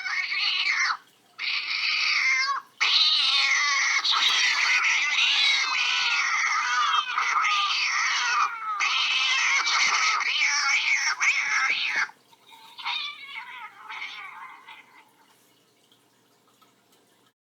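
Cats yowling in a dense, overlapping din that breaks off briefly twice in the first three seconds, runs on to about twelve seconds, then trails away in a few fainter cries.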